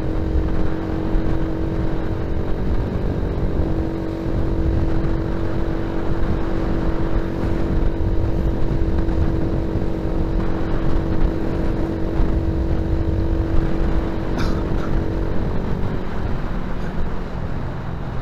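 Motor scooter being ridden at a steady speed, its engine holding one even note under heavy wind rumble on the handlebar-mounted camera's microphone. The engine note drops away about fifteen seconds in, leaving mostly wind and road noise.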